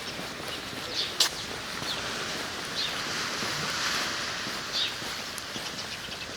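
Birds chirping in short, separate high calls, four or five of them, over a steady rushing background that swells in the middle and then eases.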